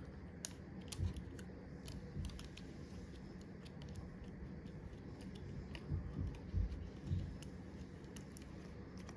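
Light, scattered clicks and taps of small hard parts being handled as an iPhone XR's logic board is worked loose and lifted out of its frame, with a few duller knocks about six to seven seconds in.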